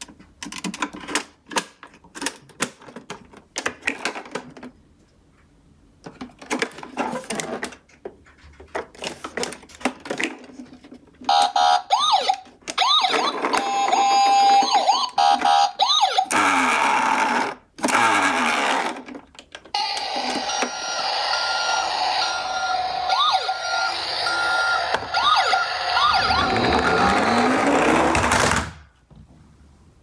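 Plastic toy ambulance being handled, its parts clicking and rattling. From about eleven seconds in to near the end, its electronic siren and sound effects play through its small built-in speaker, with a brief break in the middle.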